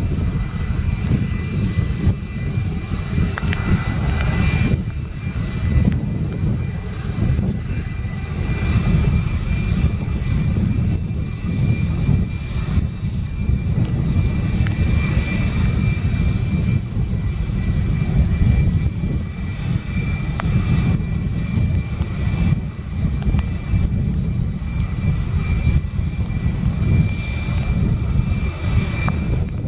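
Twin jet engines of a Boeing 757-200 running at takeoff power: a steady deep rumble with a high whine over it.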